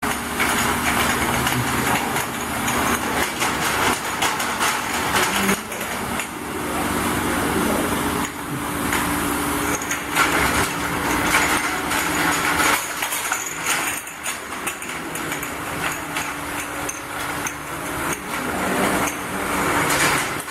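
Glass bottle washing machine running: a steady motor hum under constant clicking and clinking of glass bottles.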